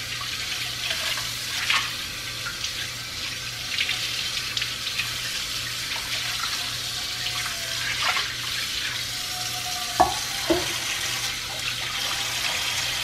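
Kitchen faucet running into an unglazed clay dish in the sink, water splashing steadily as the clay piece is filled to soak for curing. There are a couple of sharp knocks about ten seconds in.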